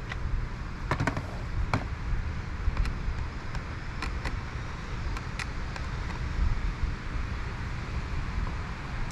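Wind buffeting the microphone in a steady low rumble, with scattered light clicks and knocks from parts being handled, most of them in the first six seconds.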